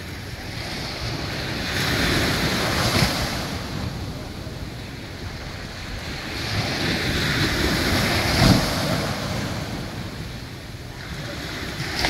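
Small waves breaking and washing up on a sandy shore, swelling twice about five seconds apart, with a low rumble of wind on the microphone.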